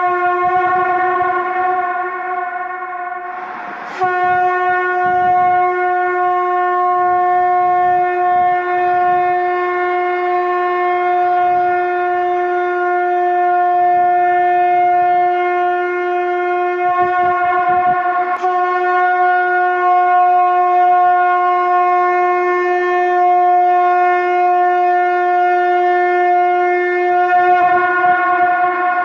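Shankh (conch shell trumpet) blown in long, steady held notes on one pitch, rich in overtones. The note fades a few seconds in, then starts again sharply about four seconds in, with another fresh blast about halfway through.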